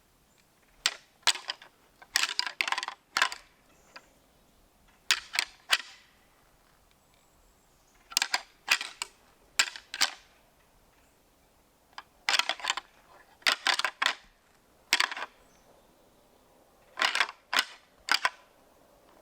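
Whitetail buck snort-wheezing: short, sharp blasts of air forced through the nose, coming in groups of two to four, six times over, with a few seconds of quiet between groups. This is the aggressive challenge call of a rutting buck.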